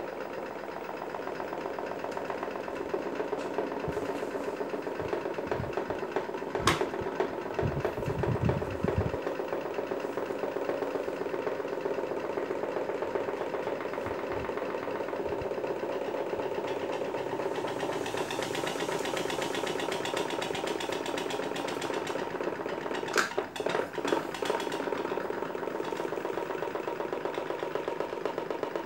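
Several electric fans running together: a steady motor hum with the whir of spinning blades. A couple of sharp clicks and a few low thuds break in along the way.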